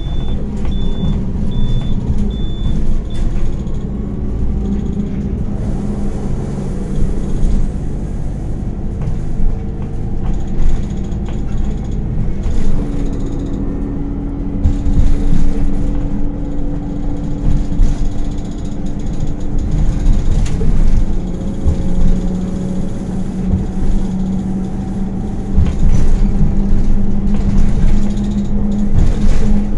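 Inside an Anadolu Isuzu Citibus city bus on the move: the engine runs steadily, its note shifting as the bus drives on, under road rumble and cabin rattles. A short high beep repeats about twice a second and stops about three seconds in.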